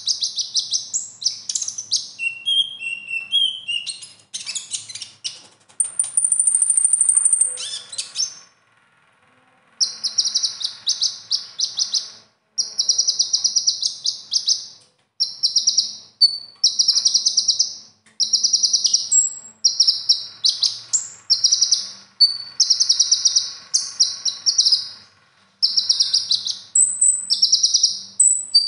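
Caged male kolibri ninja (purple-throated sunbird) singing fast, high chattering trills in bursts of a second or two, over and over with short breaks. Its song is loaded with copied phrases from other birds (isian). Around six seconds in it holds a thin, very high whistle for about two seconds, then pauses briefly before the trills resume.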